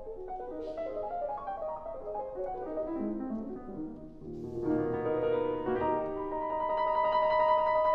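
Solo piano playing: a flurry of quick notes, then louder chords from about halfway, with notes held and ringing near the end.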